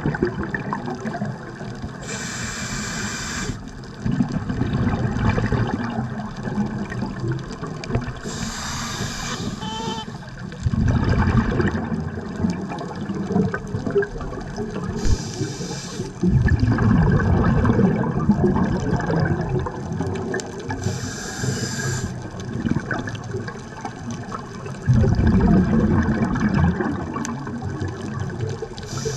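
Scuba diver breathing through a regulator underwater. Each inhale is a short hiss, about every six seconds, and is followed by a low bubbling rumble as the exhaled air escapes. A constant watery murmur runs under the breathing.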